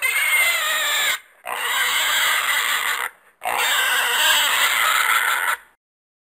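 An animal squealing three times in a row, each squeal one to two seconds long and shrill, with short breaks between.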